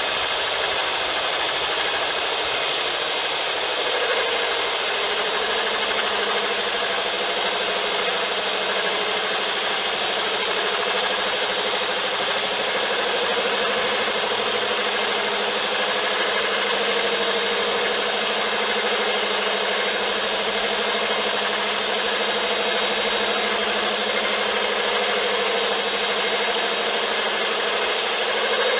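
Diamond core drill bit running steadily, grinding into vitrified porcelain paving, with a lower hum joining about five seconds in.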